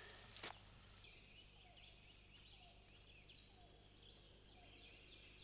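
Faint birdsong in the woods: a short low falling note repeated about once a second, with scattered higher chirps. A single sharp click comes about half a second in.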